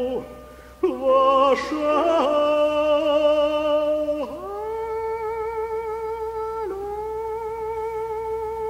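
A male cantor singing Hebrew liturgy in cantorial style. After a short breath comes a run of quick ornamented notes with vibrato, then one long held note that breaks briefly about two-thirds of the way through and carries on.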